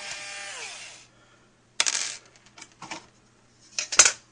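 Intro sound effect of metallic clinks. A bright metallic ring fades out over the first second, then come three short clusters of clinks and rattles, the last one near the end the loudest.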